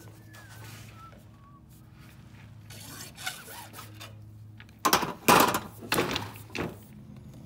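Freshly cut PVC pipe being handled: faint rustling, then about five seconds in a quick run of five or so loud scraping and knocking sounds over under two seconds.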